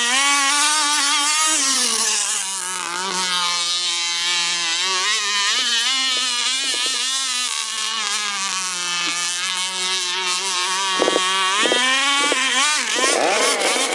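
Boat engine running continuously, its pitch rising and falling as the throttle changes.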